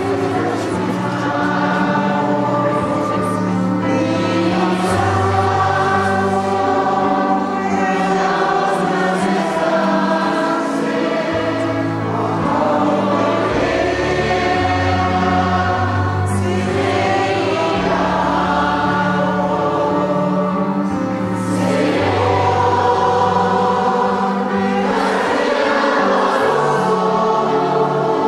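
A church congregation singing a hymn together, with steady low accompanying notes beneath the voices.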